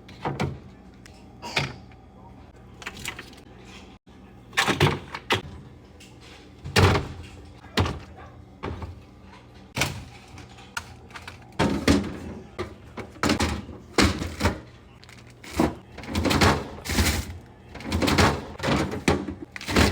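Groceries being put into a refrigerator one after another: irregular knocks, clunks and plastic rustles of packages and containers being set on the shelves, coming more often in the second half.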